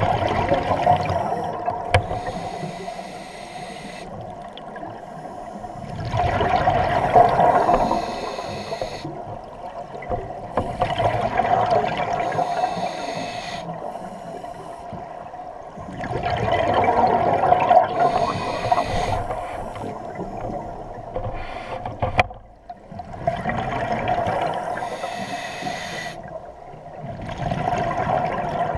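Scuba regulator breathing heard underwater: exhaled air bubbles gurgling and rumbling in swells about every five to six seconds, with quieter stretches between.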